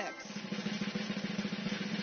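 Lottery balls churning in an air-blown glass drawing globe: a fast, continuous clatter with a steady low hum under it, much like a drum roll.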